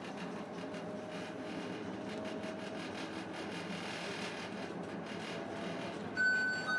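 Steady running noise of a passenger train heard from inside the carriage, the wheels rumbling over the rails. Near the end a louder, bright ringing tone suddenly sets in over it.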